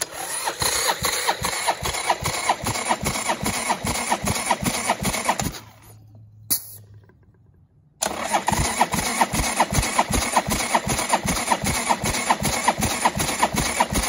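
Harley-Davidson Sportster 883 V-twin cranked over by its starter with a compression gauge in a plug hole, in two runs of about six seconds with a short pause between. The cranking is an even rhythm of several pulses a second, without the engine firing.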